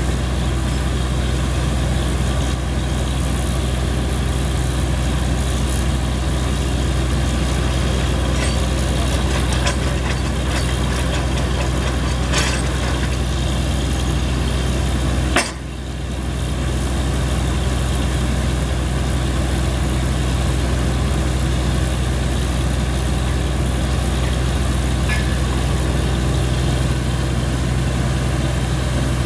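Engine of a truck-mounted borewell drilling rig running steadily, with a few light clicks and one sharp knock about halfway through.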